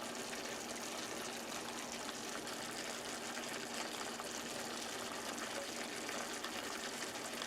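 Pot of rice noodles, chicken and vegetables cooking in water at the boil, giving a steady bubbling and hissing.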